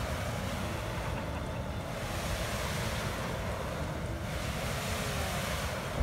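Handheld flamethrower firing a long, continuous stream of burning fuel: a steady rushing whoosh of flame.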